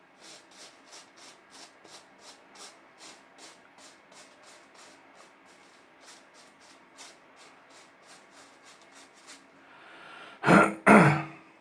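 Wilkinson Pall Mall safety razor scraping across stubble in short strokes, about two to three a second, then two much louder noises near the end.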